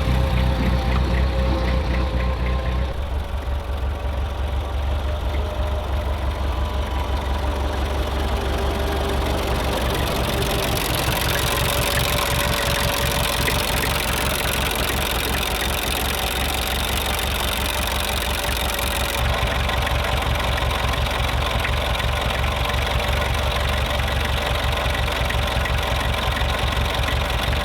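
An engine idling with a steady, low, pulsing beat; its tone brightens about eleven seconds in.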